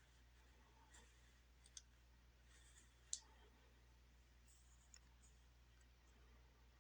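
Near silence: quiet room tone with a low steady hum, broken by a few faint, sharp clicks, the loudest about three seconds in.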